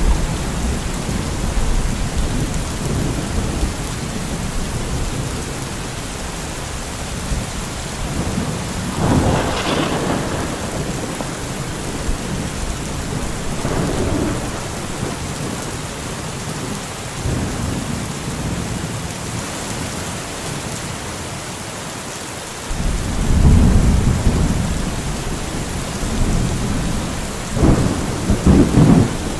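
Steady rain with rolling thunder: low rumbles swell up about nine seconds in and again near fourteen seconds, and the loudest roll comes in suddenly about twenty-three seconds in, with another near the end.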